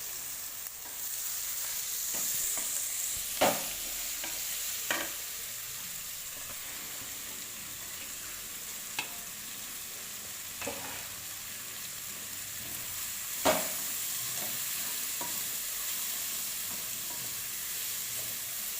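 Onions sautéing in hot oil with a steady sizzle, stirred in the pan. About five sharp knocks of the stirring utensil against the pan, the loudest about three and a half, five and thirteen and a half seconds in.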